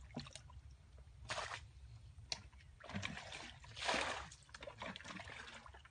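Shallow muddy water sloshing and splashing as hands work in it, picking fish from a cast net: a few separate splashes, the loudest about four seconds in.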